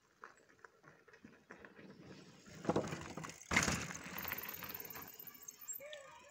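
Mongoose Dolomite fat-tire bike rolling past close by over a dirt yard: the wide tyres on the dirt grow louder to two peaks near the middle, then fade.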